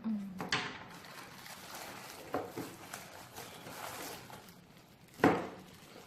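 Plastic toys and their packaging being handled: scattered clicks and a faint rustle, with one sharp, loud knock about five seconds in.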